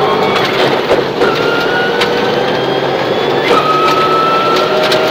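Subaru Impreza rally car's engine, heard from inside the cabin, pulling hard under acceleration on a gravel stage, its pitch climbing steadily with two upshifts, about a second in and about three and a half seconds in. Loose gravel rumbles and clicks against the car underneath.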